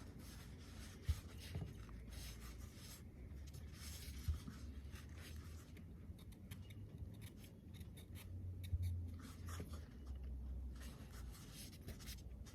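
Faint rubbing and handling of a rubber air compressor hose being worked onto its hose fitting, with a couple of small clicks about a second in and again about four seconds in.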